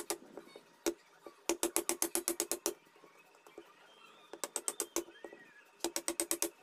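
Hammer striking a wood chisel as it cuts into a wooden plank: runs of quick, light taps, about nine a second, with short pauses between the runs.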